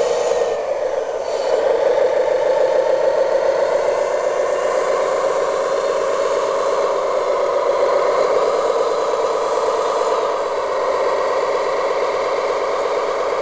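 Radio-controlled model wheel loader running steadily as it digs into sand and lifts a loaded bucket. The pitch and level dip briefly about a second in, then waver as it works.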